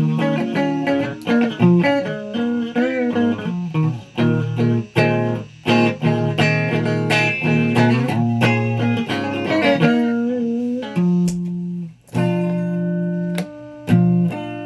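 Guitar being played: quick runs of plucked notes, then slower, longer-held notes over the last few seconds.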